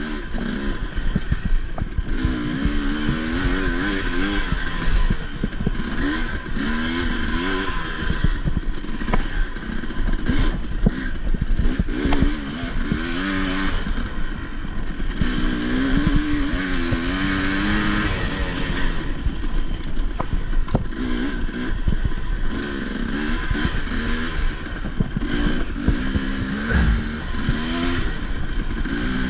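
Enduro dirt bike engine revving up and down constantly as it is ridden over rough ground, with knocks and clatter from the bike throughout.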